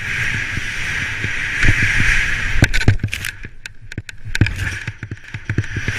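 Skis running fast through deep powder snow, with wind rushing over the helmet-mounted camera's microphone and repeated knocks and thumps.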